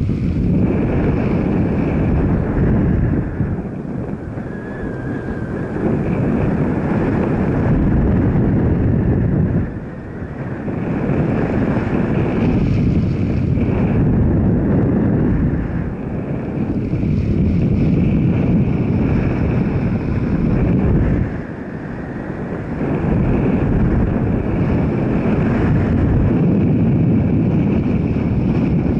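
Heavy wind rushing over the microphone, with the running noise of a moving vehicle underneath; it eases briefly about four times and then builds again.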